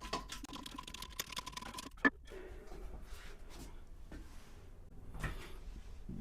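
Flat screwdriver working a toilet-seat hinge bolt loose: quick small clicks with a thin steady tone for about two seconds, then one sharp click, then faint handling noise.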